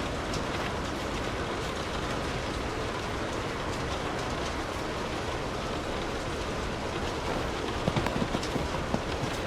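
Steady rain falling, with a few sharper drops landing close by near the end.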